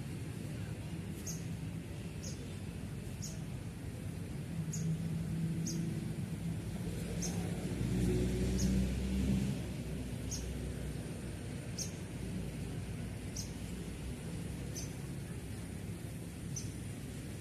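A small bird chirping over and over, one short high chirp every second or so, over a low rumble of outdoor background noise that swells briefly about eight seconds in.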